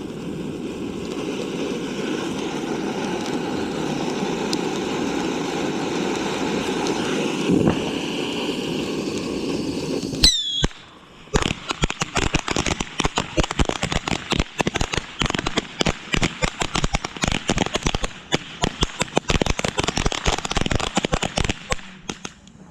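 Consumer fireworks: a steady, loud hissing spray for about ten seconds, then a sharp bang with a brief falling whistle, then a long run of rapid, irregular crackling pops like a string of firecrackers.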